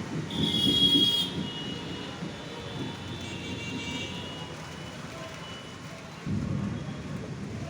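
Storm noise: a steady low rumble of wind and rain, with a short high-pitched tone about half a second in and fainter high tones for a few seconds after.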